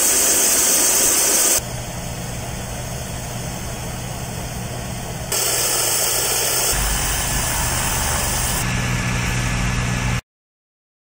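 Heavy S-400 launcher trucks' engines running, with a steady hiss over a low hum. The sound changes abruptly several times and then cuts off to silence about ten seconds in.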